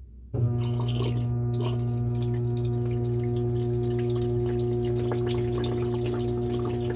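Washing machine coming on: a steady electric hum starts suddenly about a third of a second in, with water splashing and dripping over it, heard from a phone inside the drum.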